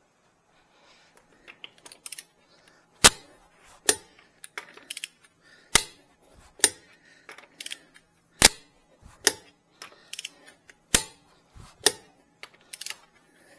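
Click-type torque wrench on wheel lug nuts: a series of sharp metallic clicks at uneven intervals, each marking a lug nut reaching its set torque, with softer ratchet and handling noises in between.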